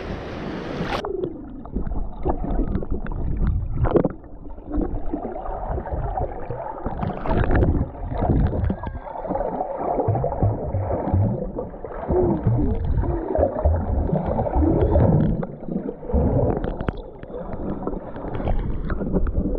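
Water sounds heard through a camera that goes underwater about a second in: the sound turns abruptly muffled, with irregular sloshing, gurgling and dull knocks from people moving in shallow water.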